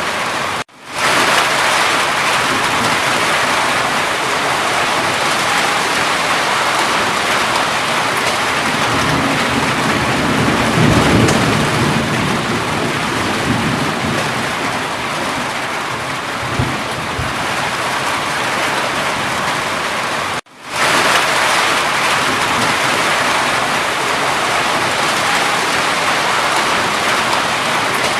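Steady heavy rainfall, with a low rumble of distant thunder swelling about ten seconds in. The sound cuts out for a split second twice, near the start and about twenty seconds in.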